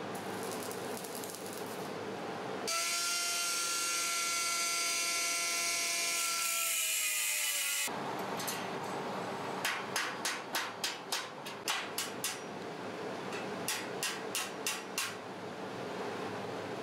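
Chipping hammer striking slag off welded rebar joints: two quick runs of light metallic taps, about three a second. Before them, a louder steady whine with crackling hiss runs for about five seconds, sags slightly in pitch and cuts off suddenly.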